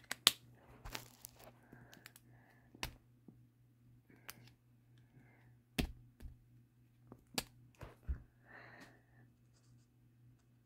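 Felt-tip markers being handled and used at a table: about ten scattered sharp clicks and taps, from caps and markers knocking and being set down, with soft scratchy marker strokes between them.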